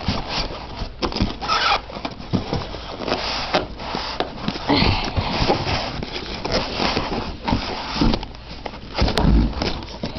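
Packaging in a cardboard box being handled: irregular rustling and scraping with short knocks, and a low thump about nine seconds in.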